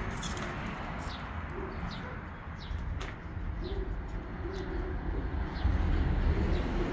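Pigeons cooing over and over, with scattered short chirps from small birds. Underneath is a low rumble that grows louder near the end.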